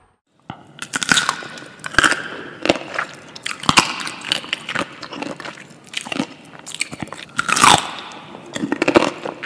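Crunchy chewing and biting, a comic eating sound effect: irregular loud crunches, one or two a second, starting about half a second in.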